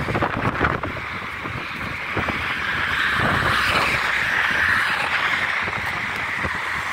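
Road traffic passing on a bridge: steady tyre and engine noise, swelling as a car goes by around the middle.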